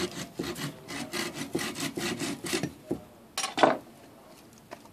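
Small hand saw cutting through a thin dead branch in quick back-and-forth strokes, which stop after about two and a half seconds. A short, louder sound follows about a second later.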